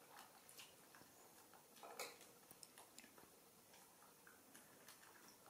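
Near silence: room tone with a few faint, scattered small clicks, the clearest about two seconds in.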